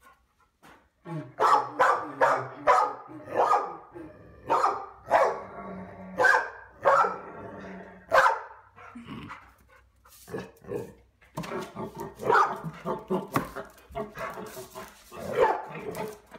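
Dog barking repeatedly in quick runs, an alarmed reaction to a strange noise it is scared of, mixed with a man's muffled voice sounding through a cardboard wrapping-paper tube.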